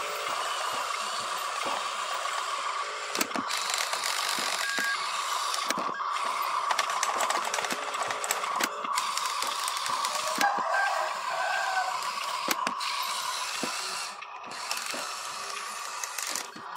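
Small electric motors and gearboxes of radio-controlled construction models, a dump truck and a tracked excavator, whirring steadily with frequent clicks and rattles. The whir drops off about fourteen seconds in.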